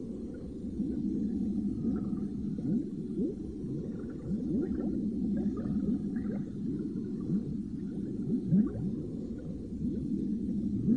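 Cartoon underwater bubbling sound effect: a dense stream of short rising bubble blips over a low steady rumble.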